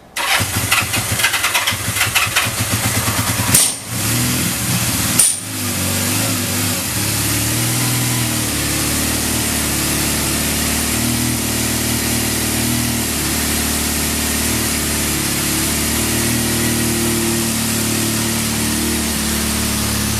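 A 1979 Kawasaki Z650 LTD's air-cooled inline-four engine started on the electric starter, running rough and uneven at first with two brief sharp sounds about four and five seconds in, then settling into a steady idle. Offered as starting well with no abnormal noises.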